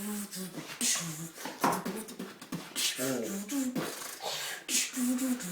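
A man beatboxing, with quick mouth-made clicks, kick and hi-hat hisses mixed with short hummed melody notes.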